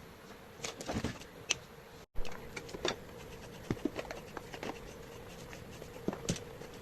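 Kitchen prep sounds: scattered light knocks and clicks of utensils and dishes being handled, over a faint steady hum, with a brief cut about two seconds in.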